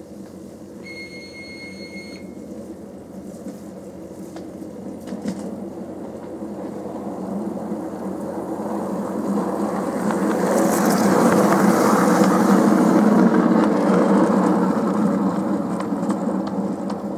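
Miniature railway locomotive and its goods van running along the track, a rumble of wheels on rail that swells as the train approaches and passes, loudest about eleven to fourteen seconds in, then fades as it moves away. A brief high whistle note sounds about a second in.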